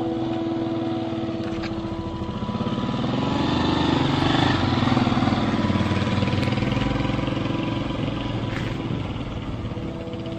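A motorcycle engine running as the bike rides past. It grows louder to a peak about halfway through, then fades as the bike rides away.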